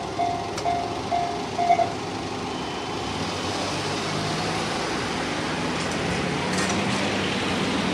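Japanese railway level crossing's electronic warning bell sounding in even beeps, about two a second, which stop about two seconds in. A steady vehicle rumble follows and grows louder near the end.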